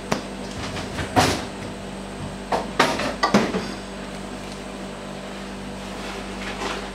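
Scraper knocking and scraping against a stainless steel mixing bowl as thick chocolate cake batter is emptied out: a handful of sharp knocks in the first three and a half seconds, then only a steady low hum.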